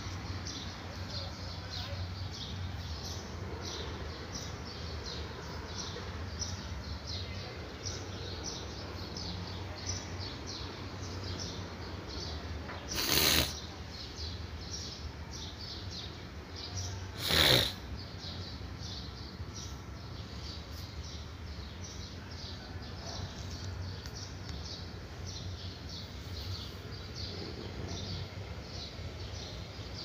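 Marker drawing short, quick strokes on a whiteboard: a rapid run of light scratchy squeaks, with two longer, louder strokes about halfway through and a few seconds later. A low steady hum lies underneath.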